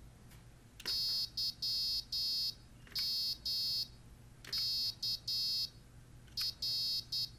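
Piezo speaker driven by a 555-timer oscillator beeping Morse code in a high, steady tone, one letter at a time as keys are typed: four short groups of dots and dashes. Each group is set off by a faint keyboard click.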